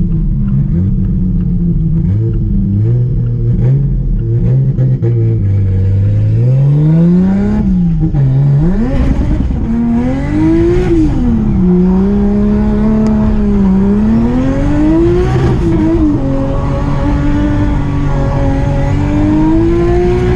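Big-turbo 2JZ straight-six in a Nissan 240SX running low and fairly steady, then revving up and down again and again from about six seconds in as the car is driven hard.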